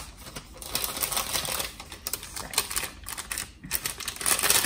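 Clear plastic packaging crinkling and rustling in the hands as a phone case is taken out, in quick irregular crackles, loudest near the end.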